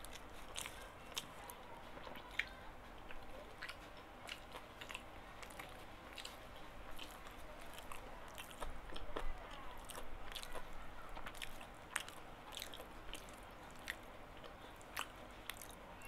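Close-miked eating: a person chewing gado-gado with peanut sauce, with many irregular sharp mouth clicks and smacks, and a spoon scooping the food off a banana-leaf wrapping.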